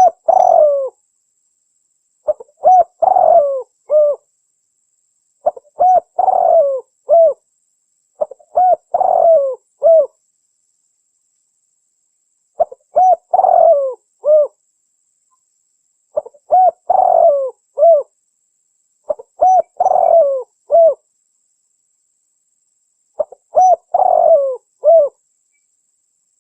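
Spotted dove (tekukur) cooing: short phrases of a few mellow coos, repeated every three to four seconds with silence between. It is a lure call, offered as a female calling to males.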